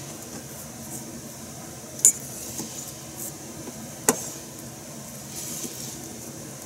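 Kitchen knife cutting raw chicken breast on a cutting board, with two sharp knocks of the blade on the board about two seconds apart, over a faint steady hum.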